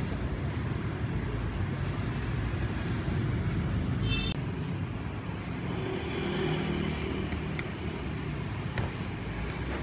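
Road traffic running past steadily, a low rumble of engines, with a brief high tone about four seconds in. Two light clicks near the end, as chopsticks stir in a ceramic bowl.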